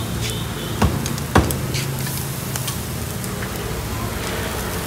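Pieces of calf meat sizzling on a charcoal grill, with two sharp clicks about a second in and a few fainter ticks, over a steady low hum.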